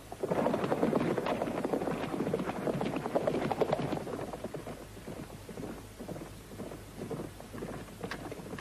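Horses galloping over dry ground: a rapid clatter of hooves, loudest in the first half and softer after about four seconds.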